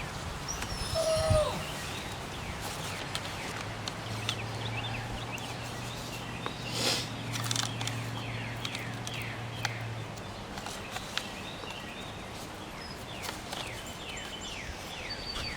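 Small birds chirping over and over, quick short downward-sliding notes, with a few faint clicks of small parts being handled. A steady low hum comes in about four seconds in and stops about ten seconds in.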